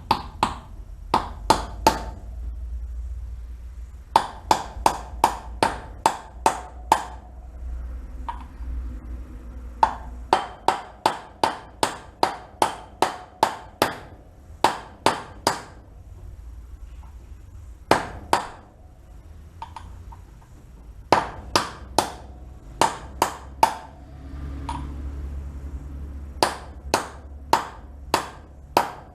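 A hammer tapping on a socket to drive a new wheel bearing into a Suzuki DR200 wheel hub. The taps are sharp and ring a little. They come in runs of several, about two to three a second, with short pauses between the runs.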